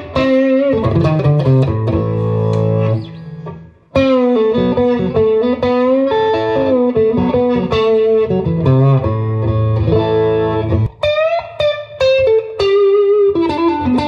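Latitude Lark Telecaster-style solid-body electric guitar, played through a Fender GTX100 amp. It picks melodic phrases of single notes and chords, dies away briefly just before four seconds in, then carries on.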